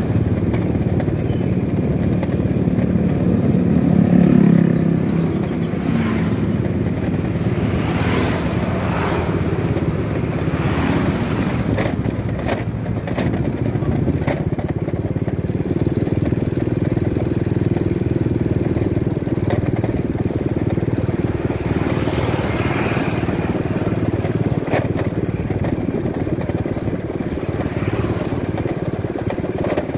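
Motorcycle engine running steadily as it rides along a road, with wind and road noise. The engine swells briefly about four seconds in. Short knocks or rattles sound now and then.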